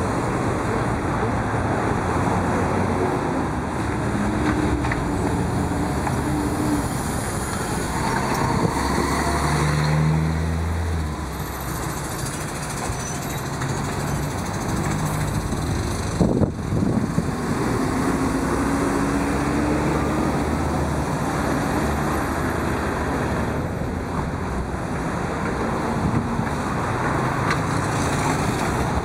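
City street traffic: cars and buses passing with engines running and tyre noise. A heavy engine passes close about ten seconds in, and there is a brief sharp clatter about sixteen seconds in.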